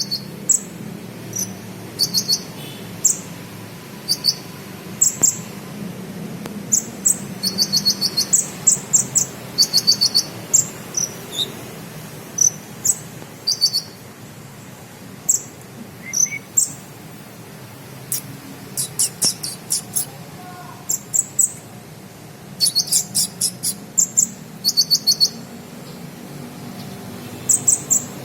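A sunbird singing in short, high-pitched runs of rapid cricket-like chirps, a few notes at a time with brief pauses between. Its song is filled with imitated cricket calls.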